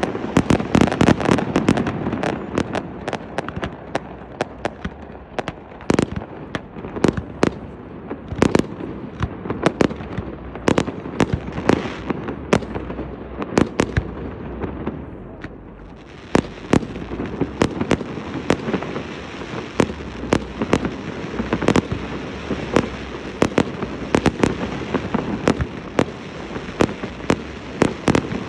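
Fireworks display: many sharp bangs of shells bursting in quick succession over a continuous low rumble. The bangs thin out a little past halfway, then come thick again.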